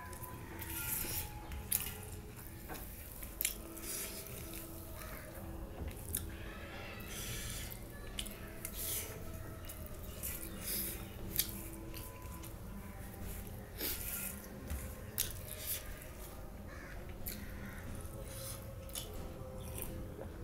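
Close-miked eating sounds: wet chewing, lip smacks and short sharp mouth clicks at irregular intervals, with fingers mixing food on a steel plate, over a faint steady background hum.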